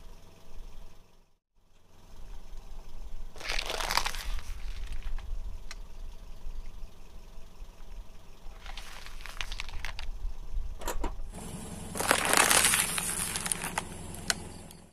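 Car tyre rolling slowly over asphalt and crushing small objects, over the low rumble of the car's engine. Three bursts of crunching and crinkling, the loudest and longest near the end.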